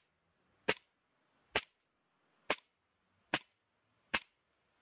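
Beretta M92 A1 CO2 airsoft pistol firing five single shots through a chronograph, each a short sharp crack, a little under one a second.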